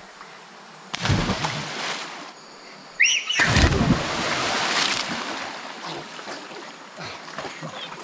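People jumping off a platform into a river pool: a splash into the water about a second in, then a louder splash about three seconds in, just after a short high yelp. Water sloshes and ripples as the swimmers move afterwards.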